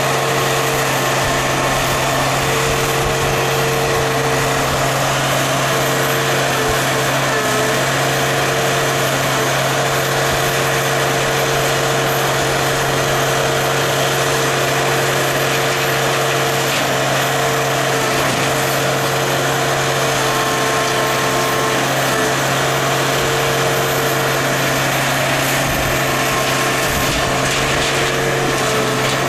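Heavy scrapyard machinery running steadily: an even engine drone with a held hum and no load changes.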